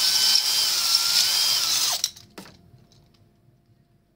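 Cordless drill at a slow speed spinning a stone cylinder hone inside an engine cylinder bore, the stones grinding the wall with a wavering whine as it cross-hatches the bore for new piston rings. The drill stops about two seconds in, followed by a single knock.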